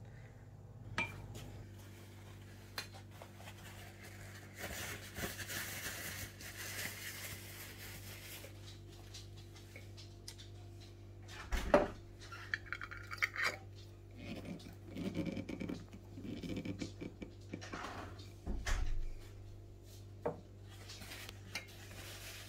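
Kitchen clatter from home canning: a metal ladle clinking against a stainless steel pot and glass jars as hot brine is poured over cucumbers. Then metal twist-off lids knock and scrape as they are set on and screwed onto the glass jars, with the sharpest knock about halfway through.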